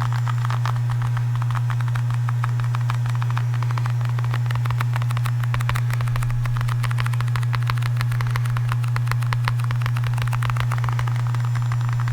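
A loud, steady low hum of background noise, with constant fine crackling and tapping over it from objects being handled close to the microphone.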